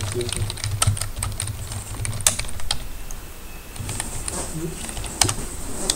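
Computer keyboard typing in irregular keystrokes, a few key strikes much louder than the rest, over a low steady hum.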